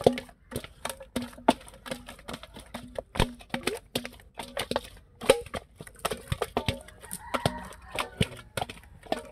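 Live fish flapping in a wide metal bowl, their bodies and tails slapping the metal in a quick, irregular run of sharp knocks, each with a short ring.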